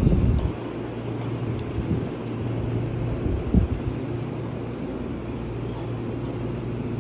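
Steady low hum of room ventilation, ceiling fans and air conditioning, with a few dull thumps, the loudest right at the start.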